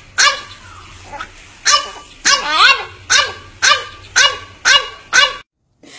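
French bulldog barking over and over in short, separate barks, about two a second, cutting off suddenly near the end.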